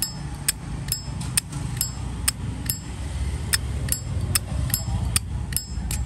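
Canadian-made Zippo lighter's lid being flicked open and snapped shut over and over, sharp metallic clicks with a bright ring about twice a second, showing off its crisp lid sound.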